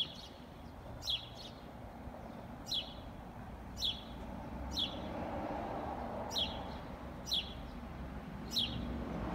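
A small bird chirping repeatedly, short sharp descending chirps about once a second, over a low steady background noise.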